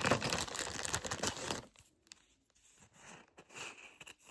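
Plastic packaging being torn open and crinkled, a dense crackling rustle for the first second and a half, then a few quieter rustles and handling noises.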